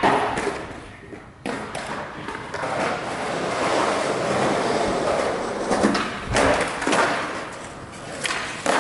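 Skateboard wheels rolling on concrete in a long, even rumble, with a sharp knock at the start and several clacks and thuds of the board in the second half.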